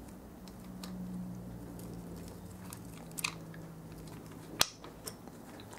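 Faint clicks and light metallic ticks of a cam chain and top cam sprocket being handled and meshed by hand on a ZS155 pit bike engine, moved a tooth at a time to line up the cam timing mark, with one sharper click near the end. A faint low hum runs underneath.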